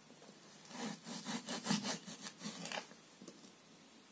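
A knife sawing through hard, freezer-chilled kebabs on a plastic cutting board: quick back-and-forth rasping strokes for about two seconds, stopping about three seconds in.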